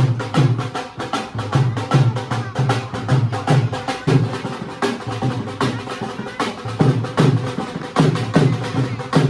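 Music with a fast, driving drum beat: low drum strokes that drop in pitch, about two or three a second, over a steady backing.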